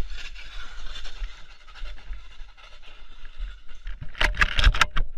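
Car crash: a low rumble and scraping, then a rapid series of loud bangs and clattering about four seconds in.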